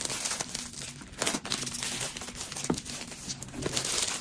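A retail product box and its packaging being opened and handled by hand: irregular rustling with many small clicks and crackles.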